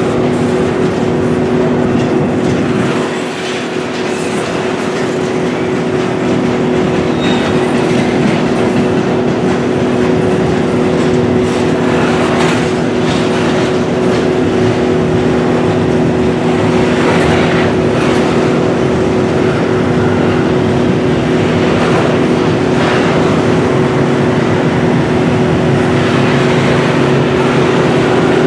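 Double-stack intermodal container well cars of a freight train rolling past: a steady rumble and clatter of steel wheels on rail, with a steady hum of a few tones underneath and an occasional clank every few seconds.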